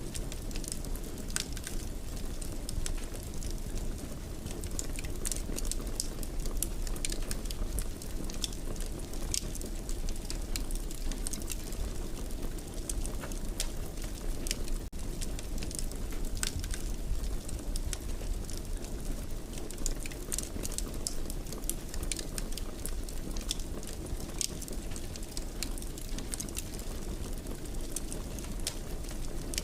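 Wood fire in a fireplace crackling, with frequent irregular pops and snaps over a steady low rumble of the flames.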